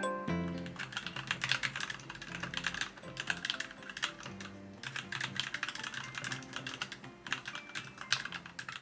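Rapid typing on an NK65 Milkshake Edition mechanical keyboard: a quick, dense run of key clicks and clacks.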